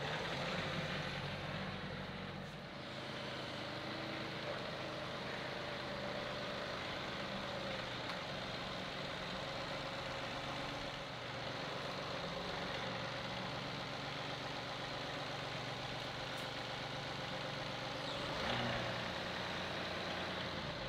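Compact farm tractor's engine running steadily, with a short louder swell near the end.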